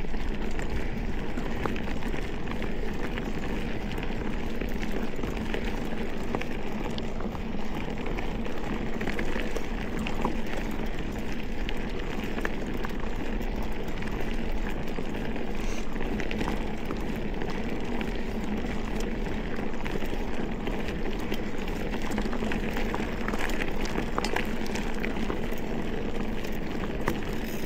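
Mountain bike rolling along a packed-dirt trail: a steady rush of tyre and wind noise, with many small clicks and rattles throughout.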